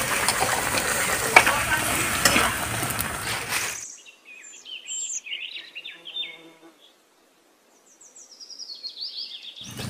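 Spice paste sizzling in a kadai over a wood-fire stove as it is stirred, with a few sharp clicks. About four seconds in it cuts off to faint bird chirps, a short silence, then a quick run of chirps stepping down in pitch.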